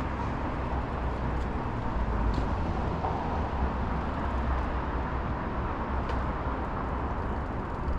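Steady street traffic noise with a low rumble and no distinct single event.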